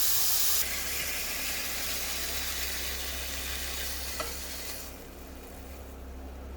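Chicken breast sizzling in a pan of hot bacon fat. The sizzle fades away until it is faint by about five seconds in, and there is a light click about four seconds in.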